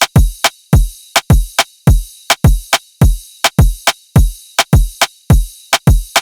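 Instrumental drum-machine beat from an electronic dance track. A deep kick drum with a quickly falling pitch lands about every half second, sharp clicks fall between the kicks, and a steady hissing layer sits on top.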